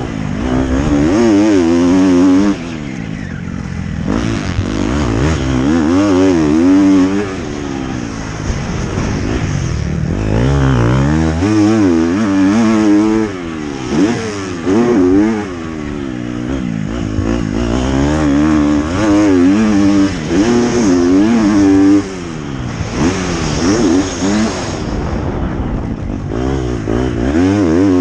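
Motocross bike engine revving hard and backing off again and again, its pitch rising and falling as the throttle opens and shuts, with sudden drops where the throttle is chopped.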